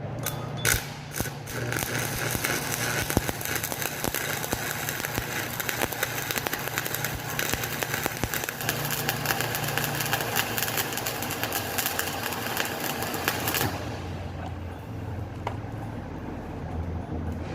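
Stick-welding arc burning a 6013 electrode on pipe: a steady dense crackle full of sharp clicks. About fourteen seconds in the arc breaks off suddenly, leaving a low steady hum.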